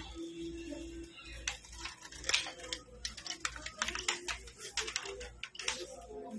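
A run of irregular light clicks and taps, several a second, coming in uneven clusters.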